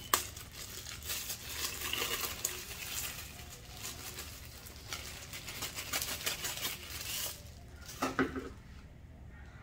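Thin plastic wrapping crinkling and crackling in the hands as it is pulled off a small camera, a dense run of crackles that stops about seven seconds in, followed by one short handling knock.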